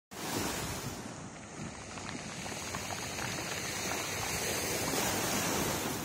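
Sea waves breaking and washing up on the shore: a steady rush of surf that swells a little toward the end.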